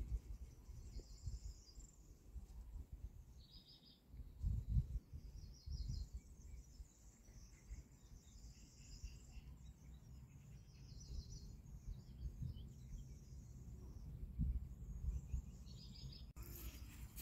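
Faint birdsong in the background: short chirping trills repeating every second or so, with a few low rumbles underneath.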